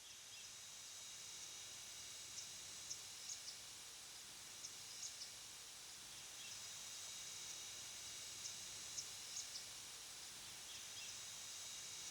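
Faint rural ambience: a steady high insect drone, with short high chirps in groups of three or four every two to three seconds.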